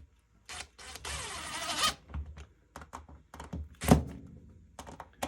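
Handling noises while fitting a turkey tail fan onto a wall mount: a scraping rustle lasting about a second, then scattered clicks and knocks, with one sharp knock about four seconds in.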